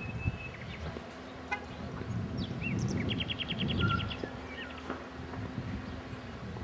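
Open-air ambience: birds give short chirps and, about three seconds in, a quick trill, over a constant low rumble with a faint steady hum.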